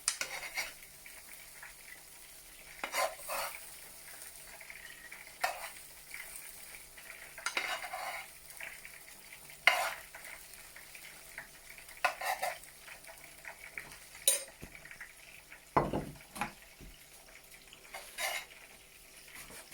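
A spoon stirring and scraping in a pan of sautéed lentils and vegetables, with short scrapes and clinks every couple of seconds over a faint sizzle.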